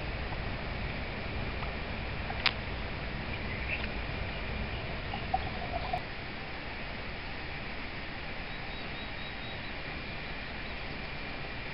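Steady outdoor background noise with faint bird chirps. There is one sharp click about two and a half seconds in, and the background steps down slightly about six seconds in.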